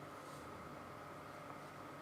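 Quiet room tone: a faint steady hiss with a thin, steady high-pitched hum, and one tiny click about a second and a half in.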